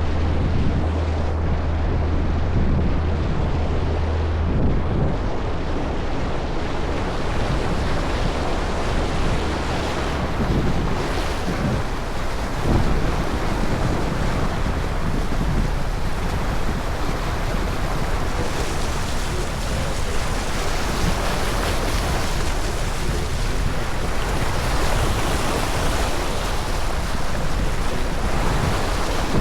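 Wind buffeting the microphone and water rushing past the hull of a ferry under way, a steady loud rush. A low engine drone is heard under it for the first few seconds.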